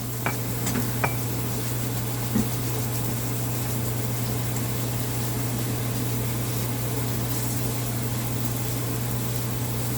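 Steady stove-top cooking noise: a constant low hum under faint sizzling, with a few light clicks in the first couple of seconds.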